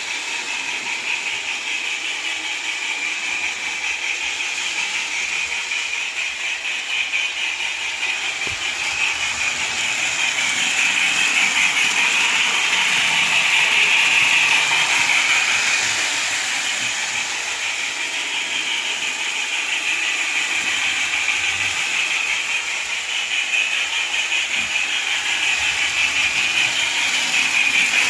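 Lionel O-gauge model steam train running on the track: a steady mechanical whir and hiss of motor and wheels. It grows louder around the middle, fades, then rises again near the end, as if the train passes close on a loop.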